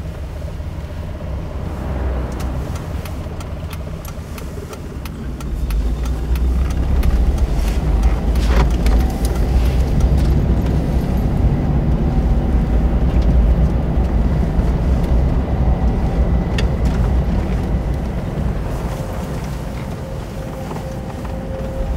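Road noise inside a moving car's cabin: a steady low rumble of engine and tyres, growing louder about six seconds in and easing off toward the end.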